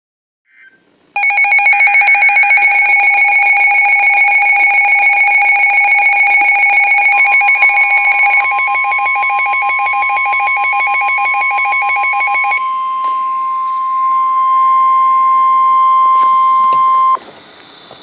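NOAA weather alert radios sounding their warning alarm, a loud rapid pulsing beep, for a severe thunderstorm warning. Partway through, the 1050 Hz warning alarm tone from the broadcast joins as one steady tone. The beeping stops about two-thirds of the way in, and the steady tone carries on until it cuts off near the end.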